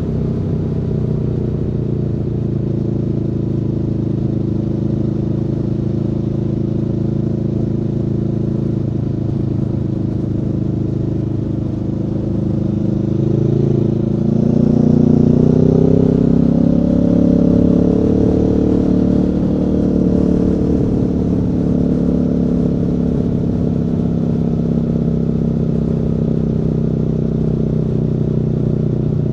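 Aprilia Tuono V4 motorcycle's V4 engine running under way, heard from the rider's position. It holds steady revs at first, then rises in pitch and gets louder as the throttle opens about halfway through, and eases back down near the end.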